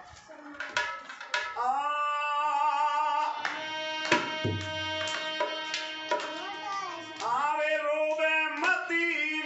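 Harmonium and dholak drum playing devotional folk music, with a man singing. A few drum strokes come first; the harmonium's held chords come in about one and a half seconds in.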